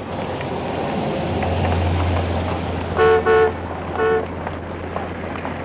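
A car horn tooting three times, two short toots close together and then a third about a second later, over a car engine running low and steady that swells about a second in.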